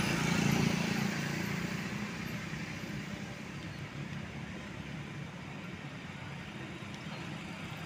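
A road vehicle passing close by, its engine and tyre noise loudest in the first second and fading away over the next few seconds, leaving a steady hum of distant traffic.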